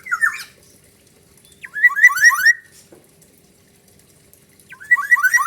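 Black-naped oriole (kepodang) singing three short bursts, each of several quick repeated siren-like sweeping notes, about two and a half seconds apart. The siren-like phrases are a learned imitation of a siren.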